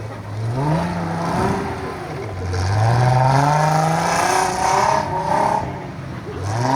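Off-road trial car's engine revving up three times: a short run, then a long steady climb lasting about two seconds in the middle, then a third starting near the end.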